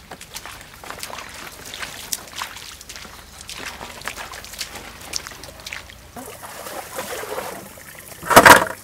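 Irregular rustling and light steps of bare feet through grass and leaves. From about six seconds in a stream trickles, and near the end comes one loud, short slap as the large fish lands on a metal plate.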